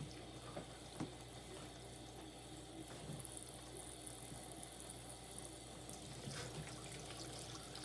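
Water running steadily into the tub of a Kuppet portable washing machine as it fills, under a low steady hum, with a faint knock about a second in.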